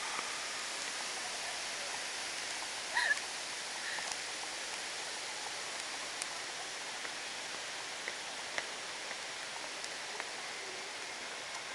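Steady rushing hiss of an indoor waterfall, with a short high squeal about three seconds in and a few faint clicks.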